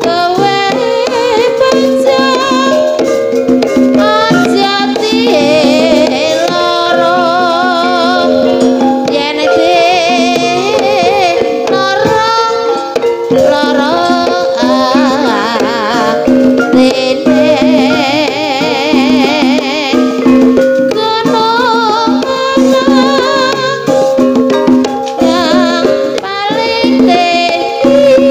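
Loud live ebeg (jaranan dangdut) music from a Javanese folk-dance troupe: drums and rattling percussion under a melody with heavy vibrato, over a steady held low note.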